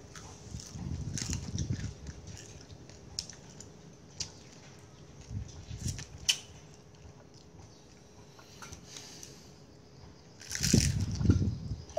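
People eating fish and rice by hand: scattered small clicks and smacks of chewing. Two low rumbling bumps, one about a second in and a louder one near the end.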